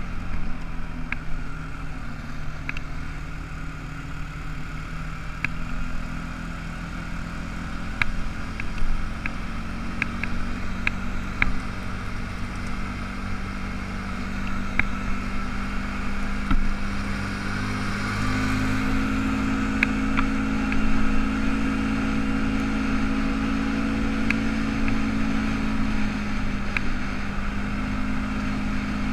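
ATV engine running steadily while riding a gravel road, with scattered sharp ticks over it; the engine note rises a little about two-thirds of the way through.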